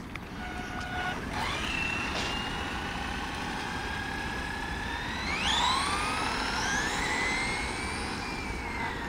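Traxxas XO-1 electric RC car's brushless motor whining as it accelerates on a speed run. The high whine climbs in pitch, jumps up sharply about five seconds in, keeps rising, then falls away near the end.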